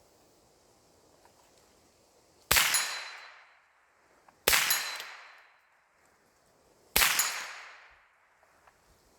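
An AR-15 rifle fitted with a CMMG .22 LR conversion kit fired three single shots about two seconds apart, each followed by an echo that dies away over about a second.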